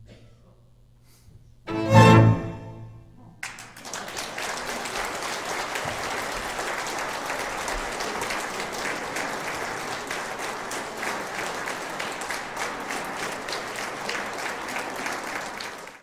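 A salon orchestra of violins, cello, double bass and piano plays a loud final chord that rings out, then the audience applauds steadily until the sound cuts off abruptly.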